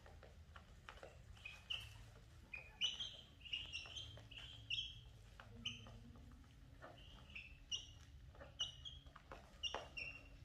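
Young chicks peeping, with many short high calls that come thickest from about two seconds in, over light taps of beaks pecking feed on a plastic tray.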